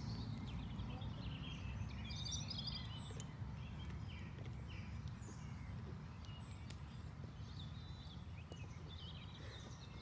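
Steady low rumble of wind on the microphone, with small birds chirping and singing over it throughout.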